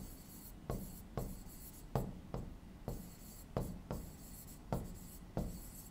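A pen writing on a board: a dozen or so short, uneven strokes and taps as a word is handwritten.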